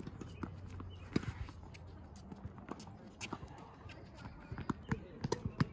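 Tennis rally on a hard court: sharp knocks of a ball being struck and bouncing, mixed with a player's quick running footsteps, with a cluster of knocks near the end.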